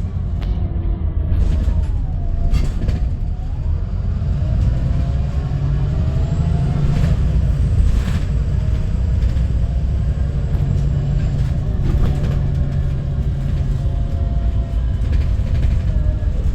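VDL SB200 Wright Pulsar 2 single-deck bus heard from inside while under way: a steady low rumble of engine and road noise, with engine and driveline tones gliding up and down as it changes speed. A few short knocks or rattles come through now and then.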